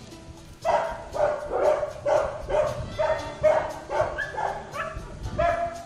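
Several kennelled dogs barking and yelping over and over, about two or three barks a second, starting less than a second in.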